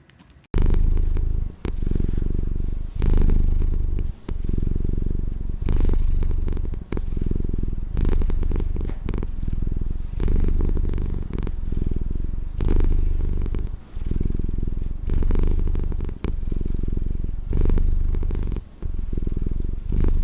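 Domestic cat purring close to the microphone, a loud low rumble that swells and dips with each breath, about one cycle a second. It starts about half a second in.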